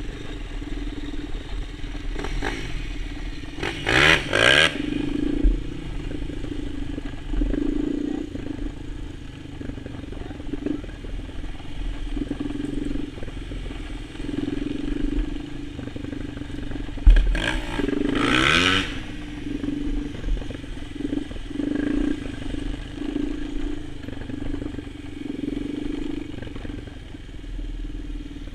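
Quad bike's engine running under way, its note pulsing up and down with the throttle over a constant low rumble. Twice, about 4 s and 18 s in, there is a brief louder burst of engine revving with a sweeping pitch.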